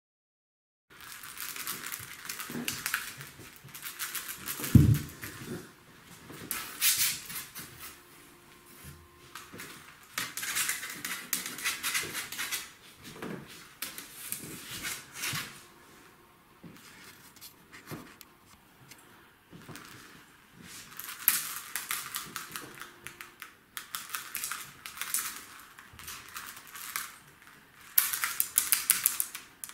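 Bursts of crackly rustling and scratching with quick clicks as Maine Coon kittens scrabble and play on a fabric-covered cat tree. A dull thump comes about five seconds in.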